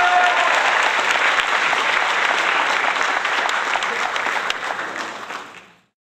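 Crowd applause: dense, fast clapping with a few voices in it, fading out near the end.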